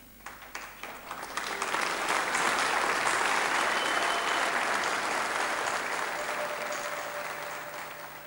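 Audience applauding. It starts with scattered claps, swells to full applause within about two seconds, then slowly fades toward the end.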